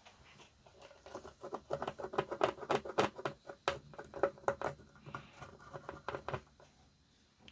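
Rapid scratchy scrubbing strokes of a brush over a circuit board. They start about a second in and stop about a second before the end.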